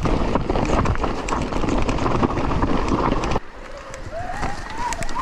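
Mountain bike riding over a rough trail: a dense rattle of tyres, bike and wind noise on the rider's camera, full of small knocks. It cuts off suddenly about three and a half seconds in, and a quieter wavering tone follows.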